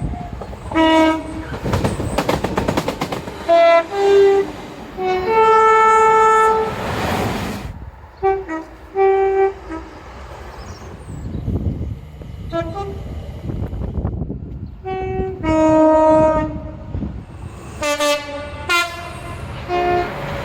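A run of UK train horns sounding, short and long two-tone blasts stepping between a high and a low note, with the longest held for about two seconds. Under them runs the rumble and clatter of trains passing.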